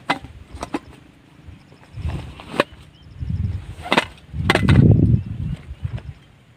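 Camp cooking gear being handled: several sharp clicks and knocks, with dull low thumps between them, the loudest about five seconds in.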